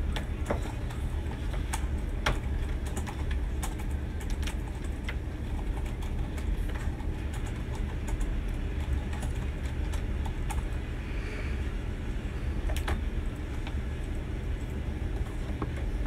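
Steady low room rumble with scattered, irregular faint clicks and taps, most frequent in the first few seconds.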